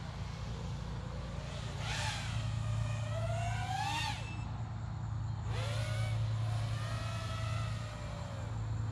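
FPV racing quadcopter's 2306 brushless motors whining in the air. The pitch climbs with throttle, cuts off sharply about four seconds in, then comes back abruptly and holds steady, over a constant low hum.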